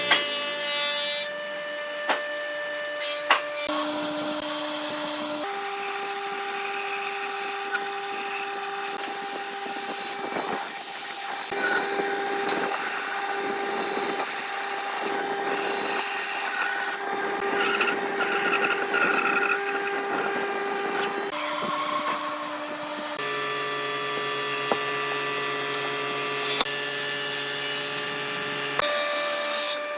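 Electric power tools working wood: a steady motor whine over the rasp of the tool on the wood, changing pitch abruptly several times.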